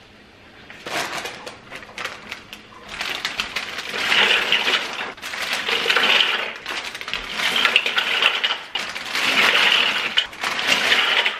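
Dry pasta shells poured from a plastic bag into a stockpot, rattling and crinkling in a series of surges about a second long each as the bag is shaken out.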